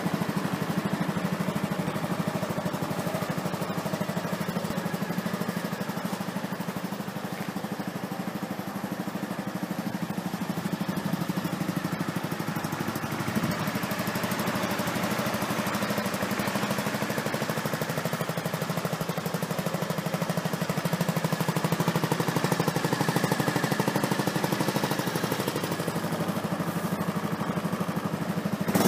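2005 Honda Forza Z scooter's 250 cc single-cylinder four-stroke engine idling steadily through an aftermarket muffler, with an even pulsing exhaust note.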